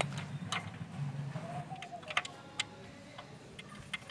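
Light metallic clicks and taps, irregularly spaced, as an open-end spanner is fitted onto the scooter engine's oil drain bolt to tighten it.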